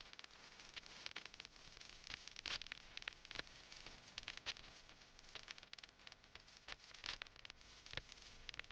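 Faint rustling with irregular sharp crackles and snaps, like dry leaves and twigs on the forest floor being stepped on or handled.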